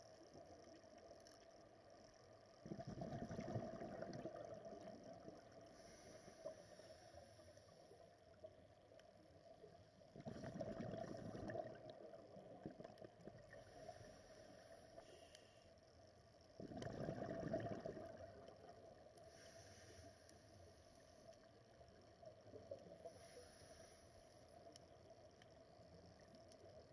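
Scuba regulator exhalation bubbles heard underwater: three rushes of bubbling, each a second or two long and several seconds apart, over a faint steady underwater hiss.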